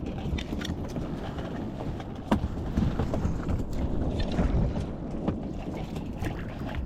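A shoal of red eye bait fish jumping and splashing at the sea surface close by, making many small irregular splashes and flicks, one sharper than the rest a little over two seconds in. Wind on the microphone runs underneath.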